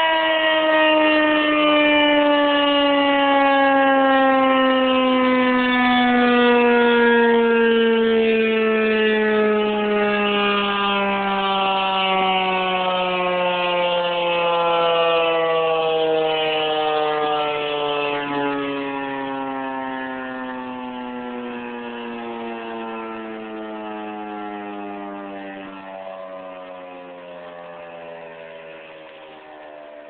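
Federal Signal 2001-130 battery-powered rotating warning siren winding down in its shut-down sequence at the end of a test. Its single tone falls slowly and evenly in pitch throughout, and it grows steadily fainter over the second half.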